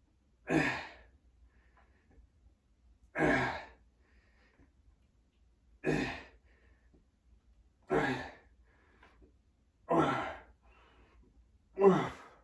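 A man's hard, voiced breaths out, one with each rep of a set of resistance-band calf raises: six short exhales about two to three seconds apart, coming a little faster toward the end as the effort builds.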